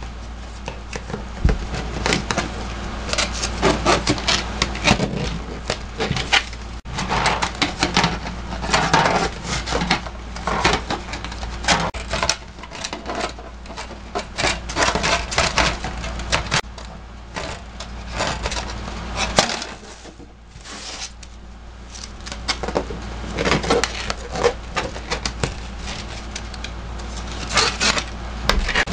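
Aluminium foil crinkling and rustling as hands fold and unfold a foil cooking packet: an irregular run of crackles, quieter for a few seconds past the middle. A low steady hum runs underneath.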